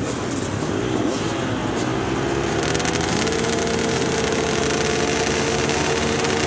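A pack of off-road dirt bikes, many of them two-strokes, running on a race start line with engines being revved. The revving gets louder and busier from about two and a half seconds in, just before the launch.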